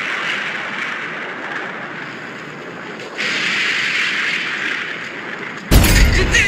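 Steady background hiss, then, about five and a half seconds in, a sudden loud explosion-like blast lasting under a second.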